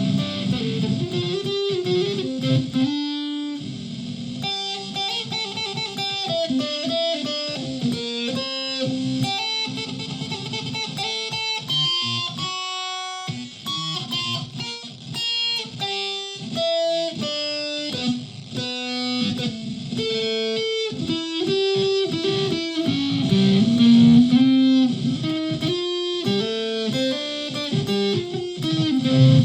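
Solid-body electric ukulele played through an effects pedal and a Tonex One into a PA speaker, picking a melodic run of single notes and chords.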